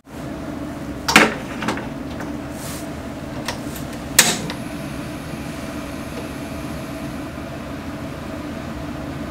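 Paloma gas stove knob turned to light the burner, with a sharp click from the igniter about four seconds in, after a few lighter clicks and knocks. A steady hum runs underneath throughout.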